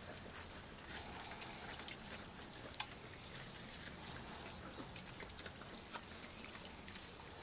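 A litter of Norwegian elkhound puppies eating together from a metal bowl: faint, irregular smacking and lapping with scattered small clicks.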